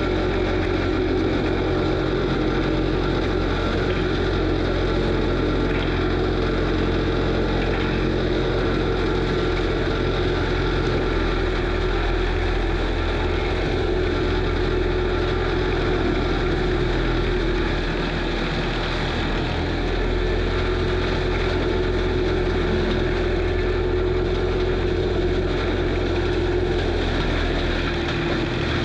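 Kubota SVL95 compact track loader's diesel engine running steadily at working speed, heard up close from the machine's roof, with the FAE forestry mulcher head driven off its hydraulics.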